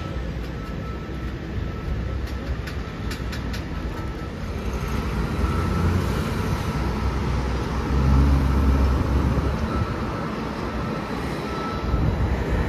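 Interior noise of a New Flyer XE40 electric city bus under way: a low road rumble that swells in the middle, a faint steady whine, and a short run of rattling clicks a couple of seconds in.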